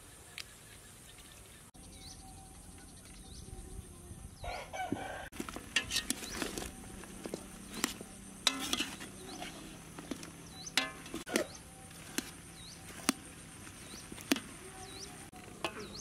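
A rooster crows once, starting about four seconds in. A metal ladle clinks against a large aluminium cooking pot as the stew is stirred, in sharp knocks every second or so, while small birds give short high chirps now and then.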